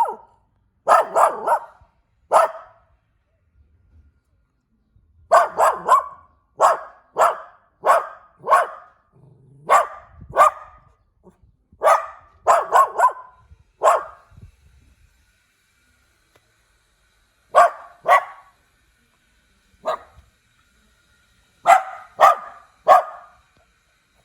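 A puppy barking in short, sharp, high yaps, singly or in quick runs of two or three, with pauses of a few seconds between runs.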